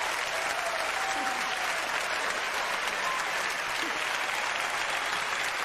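Large theater audience applauding steadily.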